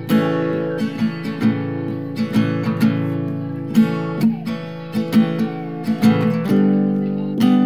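Background music: strummed acoustic guitar chords at a steady pace.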